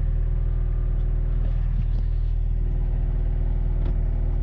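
Diesel engine of a SANY SY60 compact excavator idling steadily, a low even running with a fine rapid pulse, with a few faint clicks.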